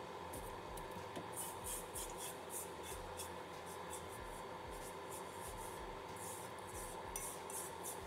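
Hands packing salted fish into a plastic tub and scraping loose salt out of a stainless steel bowl: a run of short, faint gritty scrapes and rubs.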